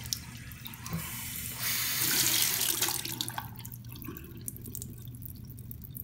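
Bathroom faucet water pouring into a small plastic washing-machine liquid detergent cup held under the tap, splashing loudest about two seconds in. After about three seconds it dies down to a quieter trickle as the cup's siphon drains a thin stream into the sink.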